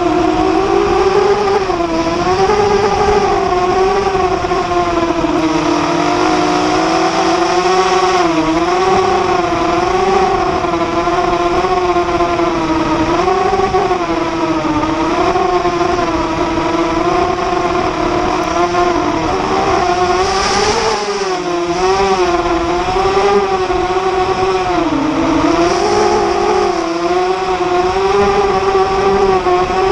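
ZMR250 FPV racing quadcopter's brushless motors and propellers whining in flight, recorded on board, the pitch wavering up and down continually as the throttle changes, with a brief dip in pitch about 25 seconds in.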